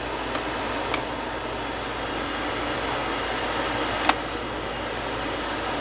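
A metal spoon stirring onion gravy in a skillet, clinking against the pan three times, over a steady hiss.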